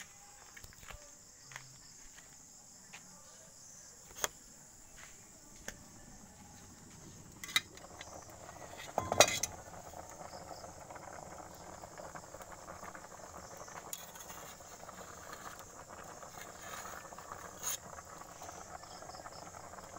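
Insects chirring steadily in a high, even band, with a few sharp knocks and a louder clatter about nine seconds in. From about eight seconds on, a pot of water boiling hard over a wood fire adds a steady bubbling rush.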